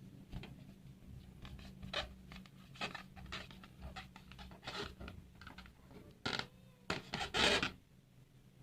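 Rubber balloons being handled and rubbed: a run of short, irregular rubbing and squeaking sounds, loudest near the end.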